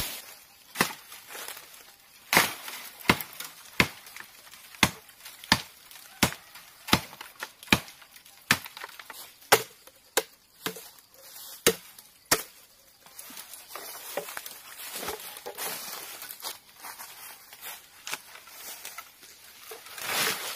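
Machete chopping through a bamboo stalk: a steady run of sharp, hard strikes, a little faster than one a second, for about the first twelve seconds. The strikes then give way to rustling of leaves and stems, with a louder rustle near the end.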